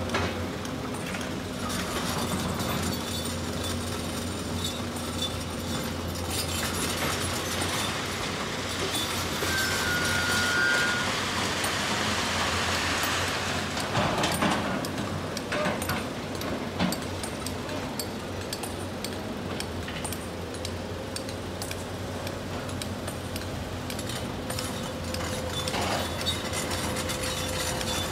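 Diesel engines of hydraulic excavators and dump trucks running steadily, with rocks clattering and clinking now and then as they are loaded. There are a few louder knocks about halfway through and near the end.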